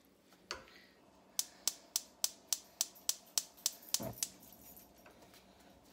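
Gas stove burner igniter clicking about three to four times a second, nine times or so, then a soft low thump as the burner lights.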